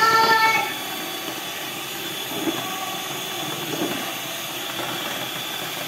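Electric hand mixer running at a steady speed, its beaters whisking thin cake batter in a glass bowl: a constant motor whine. A short high-pitched voice sounds over it at the very start.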